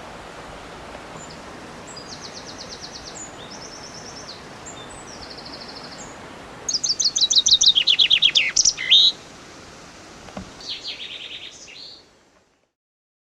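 Songbirds singing over a steady background hiss: several short, rapid high trills, then a loud song of quick notes falling in pitch about seven seconds in, and one more trill near the end.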